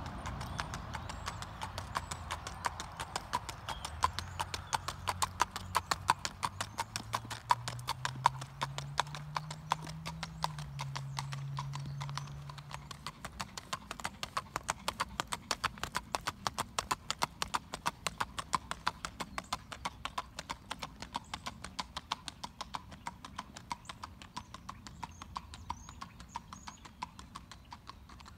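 Gaited horse's hoofbeats on hard ground in a rapid, even rhythm, growing fainter toward the end. A low hum slowly rises in pitch under them for a stretch in the first half.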